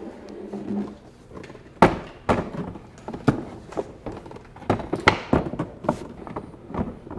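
Hard plastic housing of a wall-mounted pressure washer knocking and clunking against its wall bracket as its rails are slid onto the bracket: a series of sharp knocks beginning about two seconds in.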